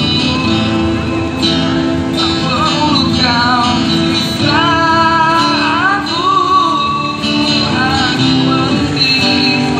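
A man singing a slow pop song into a microphone while strumming an acoustic guitar, amplified through a loudspeaker, his voice holding long, wavering notes over the steady chords.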